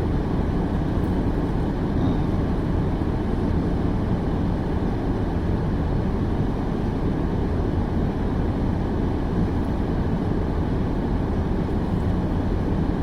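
Steady low rumble inside a parked car's cabin, with no change in level.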